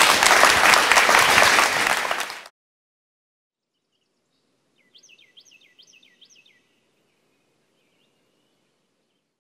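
Audience applauding, cut off abruptly about two and a half seconds in. After a silent stretch, a bird gives a faint quick series of about six falling chirps.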